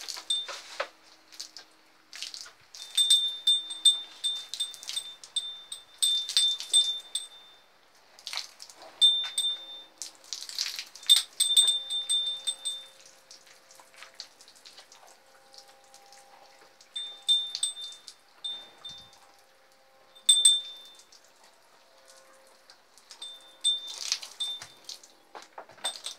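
Water from a hand-held hose, thumb over the end, spraying and splattering onto a cow's hide and the stall floor in irregular spurts. Quick runs of a high, repeated chime-like note come in with the louder spurts.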